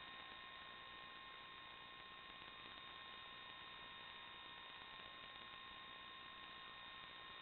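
Faint steady static hiss with a few thin, unchanging whining tones: electrical noise on the audio line of an analog FPV video recording, with no motor sound following the drone's manoeuvres.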